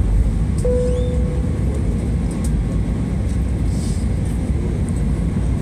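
Steady low roar of an airliner's engines and airflow, heard inside the passenger cabin during the descent. A steady mid-pitched whine joins just under a second in and holds on beneath it.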